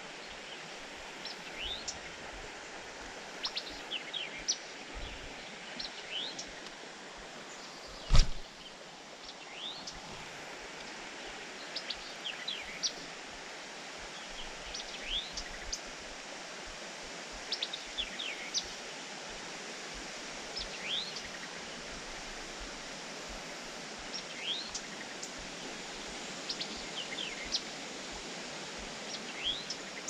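Steady rush of flowing creek water, with birds giving short chirps on and off throughout. A single sharp knock about eight seconds in is the loudest sound.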